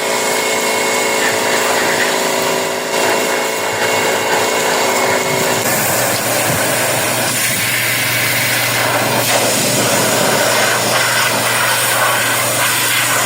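Electric pressure washer running steadily, its motor whining while the water jet hisses against roof tiles; the pitch of the whine drops out about six seconds in, leaving the spray noise over a low hum.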